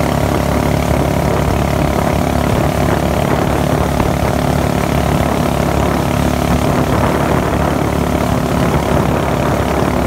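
Small motorboat's engine running steadily at speed, with wind and water rushing past the moving boat.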